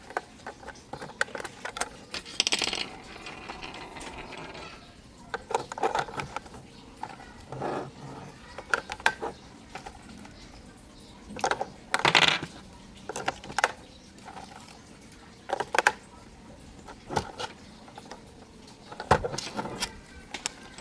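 Irregular clicks, clatters and rustles of small hard plastic toy parts and packaging being handled, with a few louder clusters of knocks.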